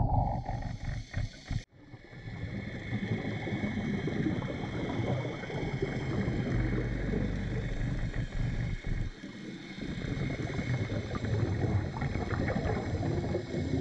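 Underwater noise of moving water and bubbling, picked up while diving, with a brief dropout about two seconds in.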